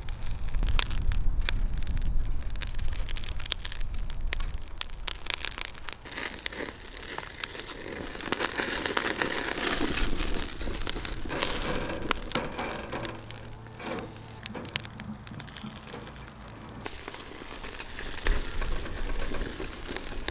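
Gizzard shad grilling in a wire basket over a charcoal fire: a steady sizzle with many sharp crackles and pops as fat drips onto the coals.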